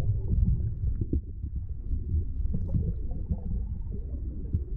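Muffled, rumbling rush of river water heard by a camera held underwater, with nearly all the sound deep and low and a few faint clicks.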